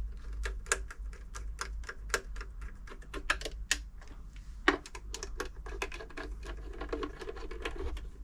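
Irregular small metallic clicks and taps, several a second, as the Toyota 2640 sewing machine's mechanism is worked by hand with a big screwdriver, over a low steady hum.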